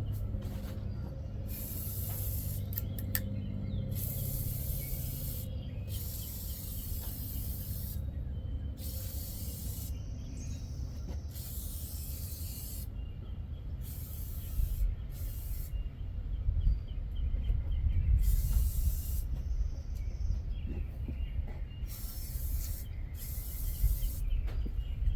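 Aerosol can of WD-40 spraying in repeated short hisses, about ten bursts of a second or less each, onto the rusty uprights of a sawmill.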